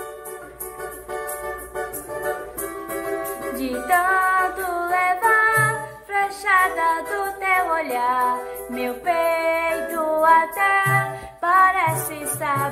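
A girl singing a Brazilian samba in Portuguese over a plucked-string accompaniment. The instruments open alone and her voice comes in about four seconds in.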